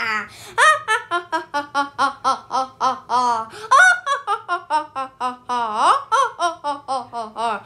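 A child's voice doing a villain's evil laugh: a long run of rapid 'ha-ha' syllables, about four a second, with its pitch swooping up and down a few times.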